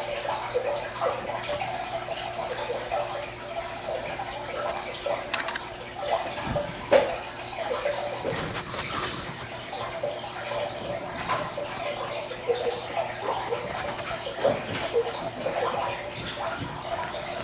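Light handling sounds of seed sowing by hand: scattered small taps, clicks and rustles, with no single loud event, over a faint steady hum.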